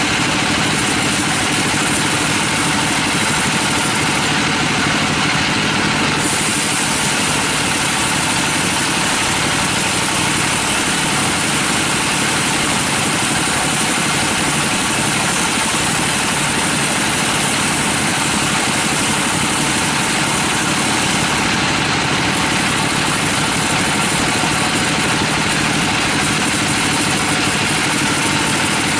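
Band sawmill running steadily, its blade sawing lengthwise through a large teak log. The machine noise holds loud and even, with no pauses.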